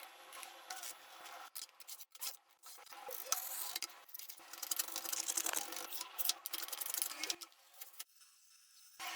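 Scraping and rubbing in irregular strokes, from hand work on the rusty gadget, over a faint steady hum, with a quieter gap about eight seconds in.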